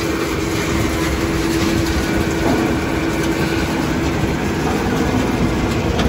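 Large electric drum wood chipper running, a steady mechanical rumble with a hum that shifts about two and a half seconds in.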